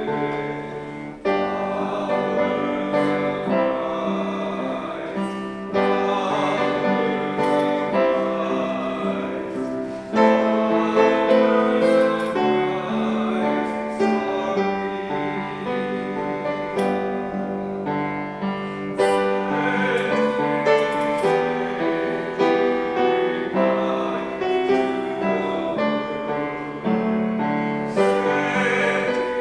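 Slow piano music of sustained chords with a singing voice over it.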